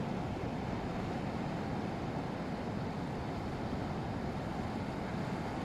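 Surf breaking on the beach in a steady, even rush, with wind on the microphone.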